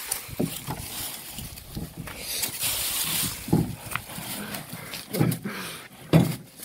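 Dog sounds: a series of short, separate low noises a second or so apart, the loudest near the end, with rustling between them.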